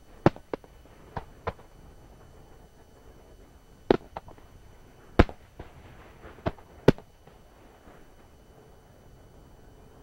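Aerial firework shells bursting: about nine sharp bangs at uneven intervals, the loudest about four, five and seven seconds in.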